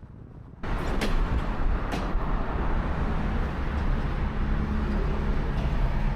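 A vehicle running, with a steady low rumble and road noise that starts abruptly less than a second in.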